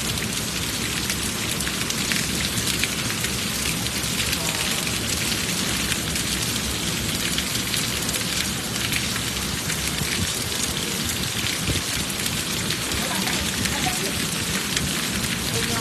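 Heavy rain falling in a steady downpour, a dense, even hiss with no breaks.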